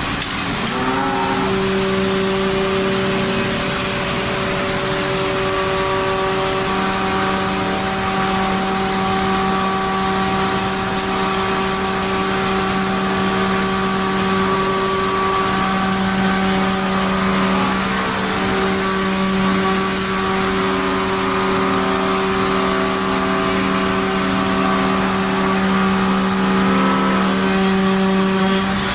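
CNC woodworking router's spindle, fitted with a router bit, spinning up in the first second and then running at a steady high whine over an even hiss.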